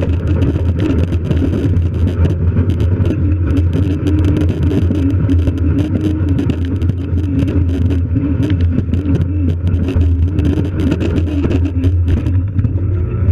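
Fat-tire bike riding over packed snow: a steady low rumble with constant crunching and rattling from the tyres and frame, and a wavering hum that comes and goes.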